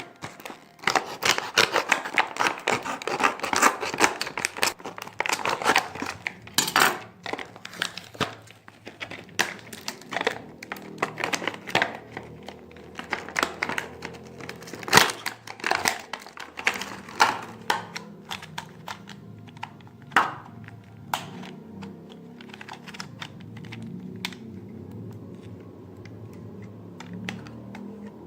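Packaging being torn open and crinkled, with many quick clicks and knocks. The handling is dense for the first half and thins to occasional sharp clicks later on.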